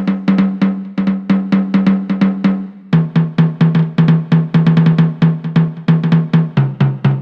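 Millenium MPS-150 electronic drum kit played through its sound module and recorded directly, not through a microphone. Quick runs of pitched drum strokes, several a second, step down to a lower-pitched drum about three seconds in and again near the end.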